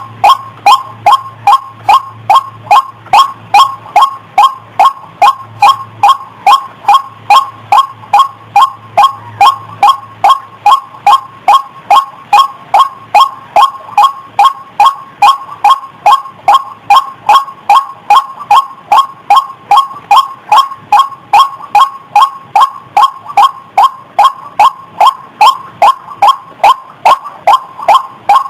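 White-breasted waterhen (ruak-ruak) calling: a loud, steady, unbroken series of sharp notes at about two and a half a second. It is the bird's repeated call as used for a lure to draw other waterhens in.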